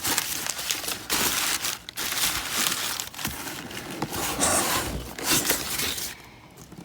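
Packaging being opened by hand: packing material rustling, crinkling and tearing in quick irregular handfuls, stopping about six seconds in.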